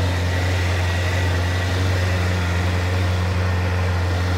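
Suzuki GSF600 Bandit Mk1's air/oil-cooled inline-four engine idling steadily, just after being started.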